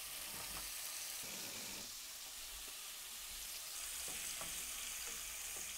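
Steady frying sizzle from two cast-iron pans: a piece of beef round steak searing in butter and olive oil, and sliced onions frying in the other. A wooden spatula stirs the onions now and then.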